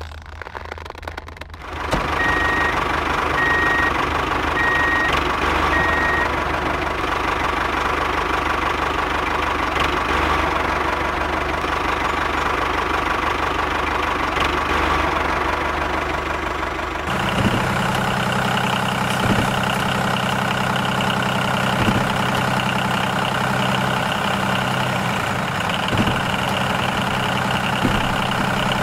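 Tractor engine running steadily. About 17 seconds in, the sound changes to an evener running note with a stronger low hum and a few light knocks.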